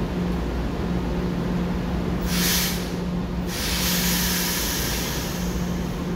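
EMU900 electric commuter train standing at the platform, letting out two hisses of compressed air from its air brakes: a short one about two seconds in, then a longer one a second later, over a steady hum.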